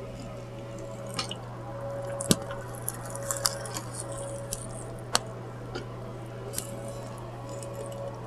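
Close-up wet mouth sounds of someone eating fried chicken: scattered lip smacks and sharp little clicks, over a steady low hum.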